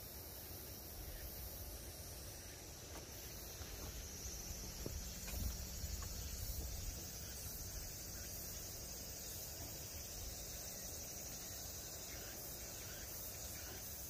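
Steady, high-pitched chorus of insects such as crickets, with a low rumble on the microphone swelling in the middle.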